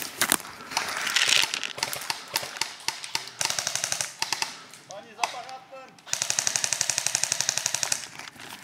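Airsoft electric rifle firing two full-auto bursts at about fifteen shots a second: a short one about three and a half seconds in and a longer one of about two seconds a little after six seconds in.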